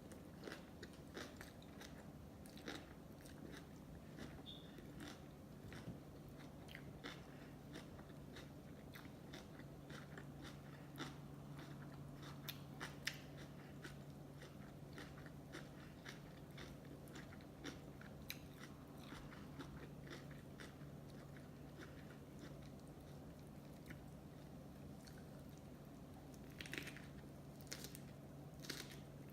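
Close-miked chewing of sushi: a run of small wet mouth clicks and smacks, busier and louder near the end, over a steady low hum.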